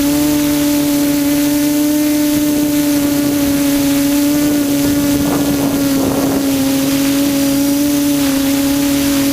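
QAV400 quadcopter's motors and propellers droning at a steady pitch, with wind noise on the microphone and a brief rush of noise about halfway through.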